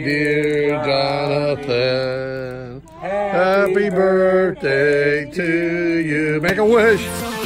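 Singing in long held notes that step from pitch to pitch with short breaks between phrases.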